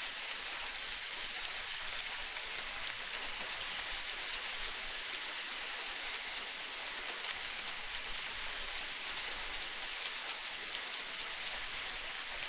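Steady, even water hiss with fine crackling ticks, like spray or rain, with no distinct creaks or bird calls.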